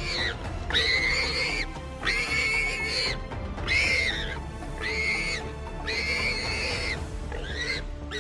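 Animal squealing: about seven high, drawn-out squeals, roughly one a second, each rising and then falling slightly, over background music.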